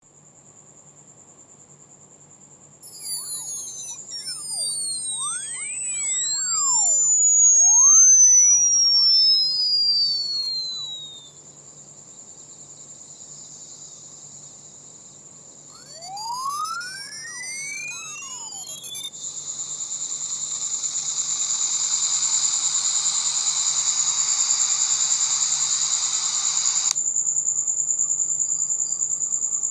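Steady high-pitched pulsing trill, like a night insect such as a cricket. Over it come loud tones gliding up and down and crossing each other, in a long spell and then a shorter one, followed by several seconds of harsh buzzing hiss that stops suddenly.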